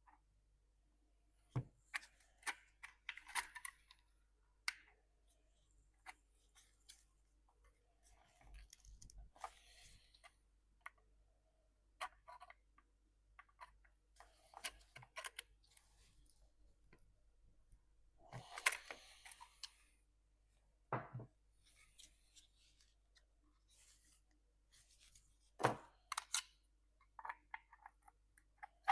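Parts being handled by hand during a dishwasher repair: scattered sharp clicks and knocks with short scraping rustles. The loudest are a scrape of about a second and a half roughly two-thirds of the way through and a knock near the end.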